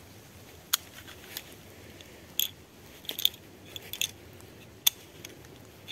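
A series of sharp metallic clicks from a Makarov-pattern traumatic pistol being worked by hand to clear a nose-dive feed jam. The speaker suspects the magazine or the cartridges are causing the jam.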